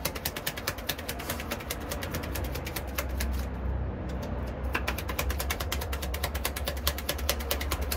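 Tarot cards being shuffled: a fast, continuous run of crisp clicks with a short lull about three and a half seconds in, over a steady low hum.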